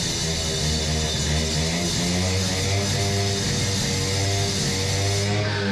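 Background rock music with guitar over a steady bass line, the notes changing about once a second.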